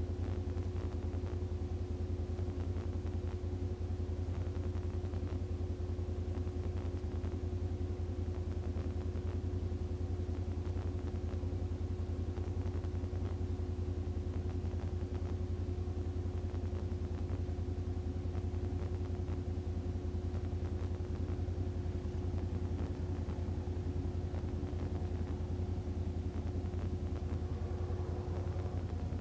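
ATV engine idling steadily: an even low hum with a steady higher tone above it.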